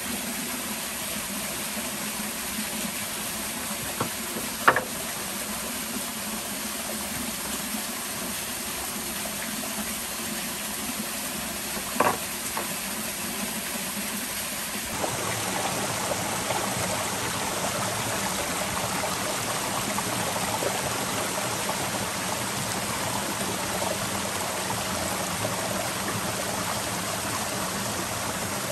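Steady rushing of a small waterfall and stream over rocks, with a few sharp knocks about four, five and twelve seconds in. About halfway the water sound steps up and becomes fuller, then stays steady.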